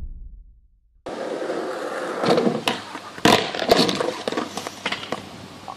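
The tail of an intro sting fades out. After a short gap, wheels roll on asphalt and a rider crashes onto the pavement, with several sharp clattering knocks between about two and four seconds in.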